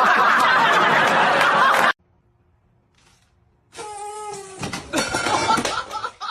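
People laughing, cut off abruptly about two seconds in. After a short silence comes a brief drawn-out pitched call, then more laughing near the end.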